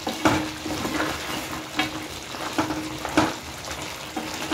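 Sugar syrup bubbling and sizzling in a non-stick frying pan as fried shakkarpare are stirred through it, with a spatula scraping the pan about five times. The syrup is cooking down to coat the pieces, and the stirring keeps them from sticking.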